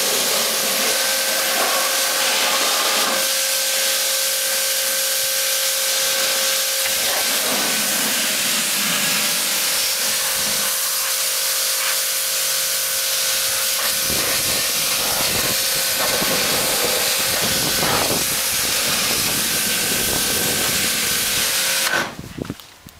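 Pressure washer jet spraying water onto a sheet-metal rangehood, a loud steady hiss with a steady hum beneath it, rinsing off degreaser. It cuts off suddenly near the end.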